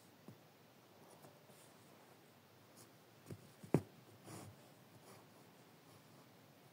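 Faint sounds of hand embroidery: a needle passing through fabric and thread being drawn through. There are a few soft ticks, the sharpest a little under four seconds in, and a brief rustle just after it.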